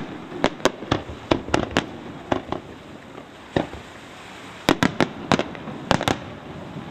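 Professional display firework shells from Pains Fireworks bursting in the air: about fifteen sharp bangs in quick, irregular clusters, with a short lull around the middle. The bangs stop about a second before the end.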